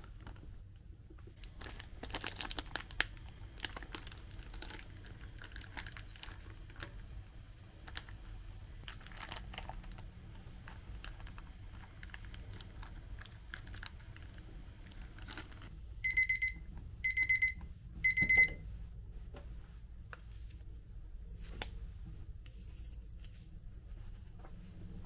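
Plastic pouches crinkling and tearing as they are opened and squeezed out over a saucepan of hot water. Later an electronic kitchen timer beeps three times, each beep a steady high tone about half a second long, louder than the crinkling.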